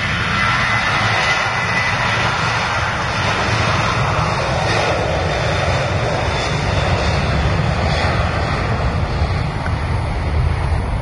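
Boeing 737-700 jet airliner on its takeoff roll, its CFM56-7B turbofans running at takeoff thrust: a loud, steady jet engine noise that swells as the aircraft speeds past, about midway through.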